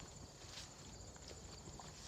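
Faint footsteps of a person walking, heard as a few soft scattered clicks over a low rumble.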